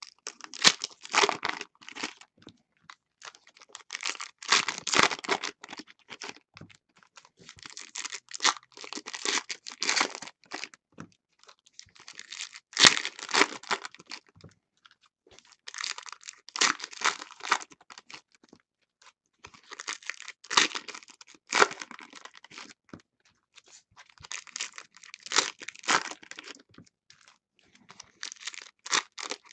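Foil wrappers of 2016 Donruss football card packs being torn open and crinkled by hand, one pack after another: about eight bursts of tearing and crackling a few seconds apart.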